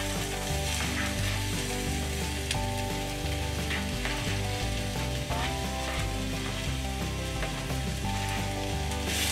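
Diced orange bell pepper sizzling in hot oil in a wok, a steady frying hiss, as the pieces are pushed in off a cutting mat with a spatula.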